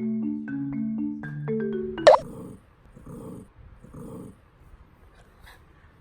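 Light marimba music stops about two seconds in. A Bichon Frise then gives one sharp, loud bark, followed by three short, low breathy grumbles about a second apart: the dog is startled and irritated.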